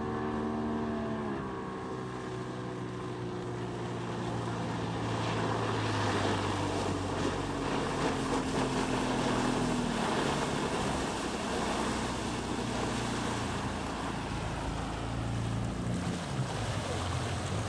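Suzuki DT65 two-stroke outboard motor running under way, its note dropping about a second in as the throttle eases, then holding fairly steady, with wind and water rushing past.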